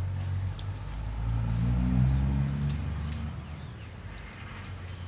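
A motor vehicle's engine passing by: a low, pitched rumble that swells to its loudest about two seconds in, then fades.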